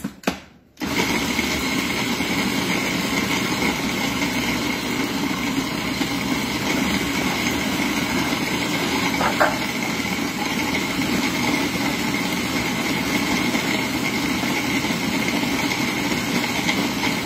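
Food processor motor starting about a second in and running steadily, with a constant high whine, as it grinds dates and walnuts into a sticky crust mixture that is starting to clump together. A couple of clicks come just before it starts, as the lid is set on.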